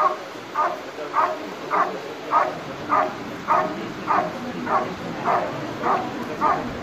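German Shepherd barking steadily and rhythmically at a helper in a blind, a bit under two barks a second: the Schutzhund hold-and-bark, in which the dog guards the cornered helper by barking without biting.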